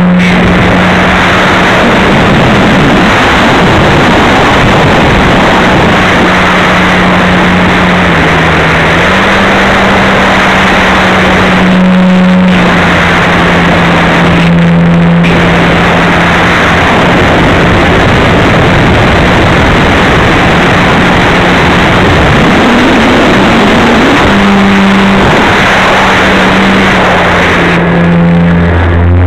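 RC model airplane's motor and propeller, heard from on board: a steady loud drone under heavy wind rush over the microphone, its pitch stepping up and down a few times.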